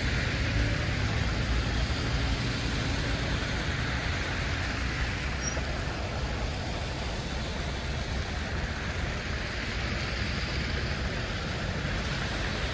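Steady city street traffic: an even low rumble of passing vehicles with a continuous tyre hiss.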